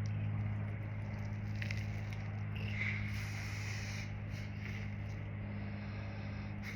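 Close-miked chewing of a mouthful of spaghetti on toast: soft, wet, irregular mouth and chewing sounds, heaviest in the first half, over a steady low hum.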